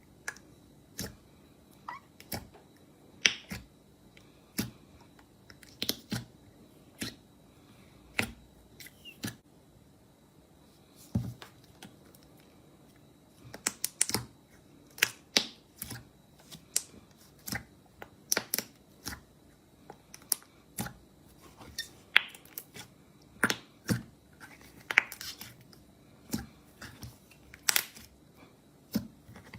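Slime being handled close to the microphone: sharp, crisp clicks and pops as it is pressed and released, irregular at about one or two a second, with a quicker flurry of pops midway.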